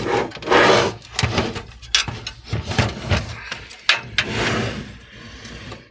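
A desktop computer case being handled and shifted about: two scraping, rustling swells with a few sharp knocks and clicks in between.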